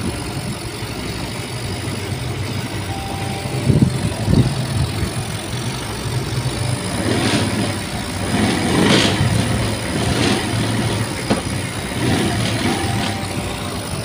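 Small air-cooled single-cylinder motorcycle engine running at idle with its bodywork off. It surges louder about four seconds in and again for a few seconds past the middle, as the throttle is worked by hand at the carburettor.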